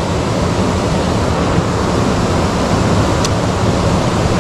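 Steady rush of river water, with a faint click about three seconds in.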